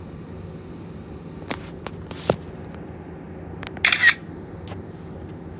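Three sharp clicks about half a second apart, then a short, louder rustling burst a little later, over a steady low background hum.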